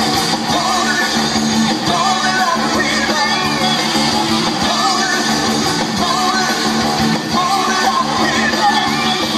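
Live band playing a song, with a lead singer's voice over the band.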